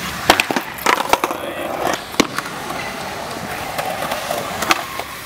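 Skateboard on concrete: a few sharp clacks of the board popping and landing in the first two seconds, then the wheels rolling on smooth concrete, with one more clack near the end.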